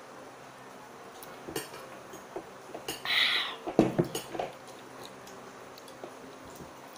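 Tableware sounds at a meal: scattered light clicks of dishes and a drinking glass on a table, with a short hiss about three seconds in and a few sharper knocks just before and after four seconds, as of the glass being set down.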